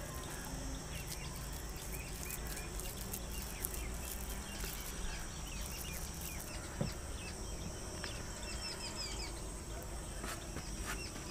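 Faint outdoor ambience: small birds chirping over and over, over a steady high-pitched insect hum.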